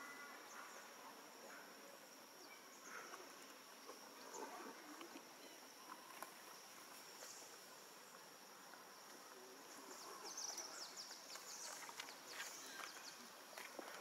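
Near silence: faint outdoor ambience with a steady, high-pitched insect drone, and scattered small clicks and rustles that become a little busier near the end.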